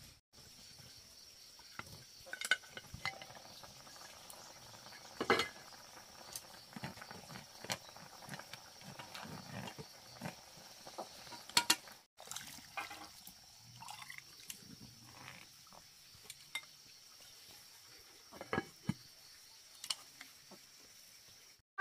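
Kitchen work sounds: utensils and dishes clinking and knocking now and then, with some liquid sounds, in short scattered clicks and knocks rather than any steady noise.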